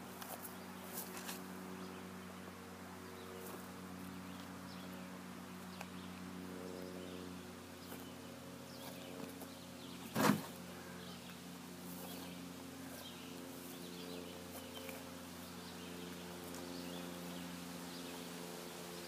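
A single sharp wooden knock about halfway through as a heavy split chestnut oak quarter is rolled over log rollers and bumps against the wood. Under it runs a steady low hum of several tones.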